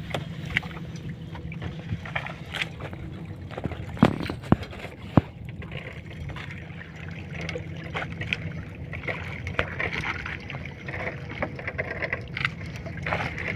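Fishing boat's engine running with a steady low hum while a floating gill net is hauled in over a net-hauler drum, the wet net swishing and dripping. Three sharp knocks about four to five seconds in.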